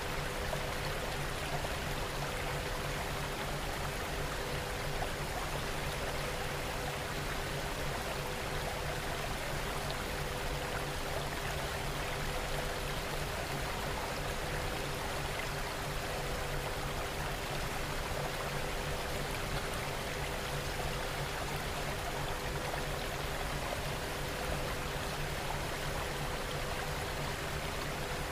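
Recorded rain falling steadily, an even rush of water with no pauses, with a few faint steady hum-like tones underneath, the highest one pulsing gently.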